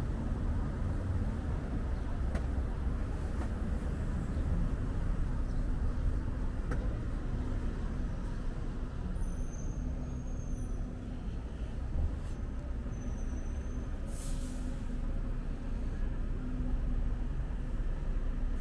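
City street traffic: a steady low rumble of engines, with a brief hiss about fourteen seconds in.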